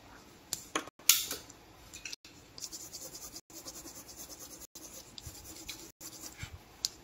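Coloured pencil being rubbed back and forth on a paper card, a quick, faint rhythmic scratching of about four strokes a second, with a couple of louder single scrapes about a second in.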